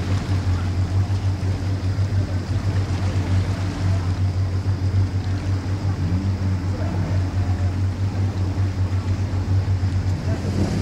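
A watercraft's engine running steadily with a low, pulsing hum.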